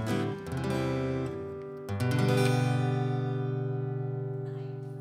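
Acoustic guitar playing the closing chords of a country song: a chord struck about half a second in, then a final strummed chord about two seconds in that rings out and slowly fades.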